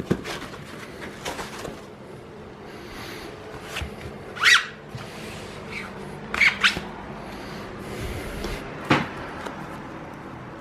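Unboxing and handling of packaging and parts: a knock at the start, scattered rustles, and a few sharp scrapes or crinkles, the loudest about four and a half seconds in.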